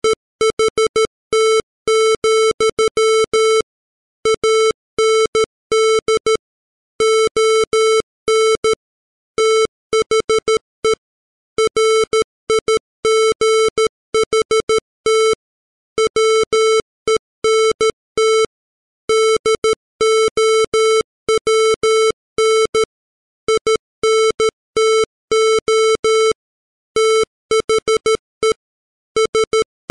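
Morse code at 13 words per minute, sent as a computer-generated 440 Hz square-wave tone. Short dots and longer dashes are keyed on and off in groups, with brief gaps between letters and longer gaps between words.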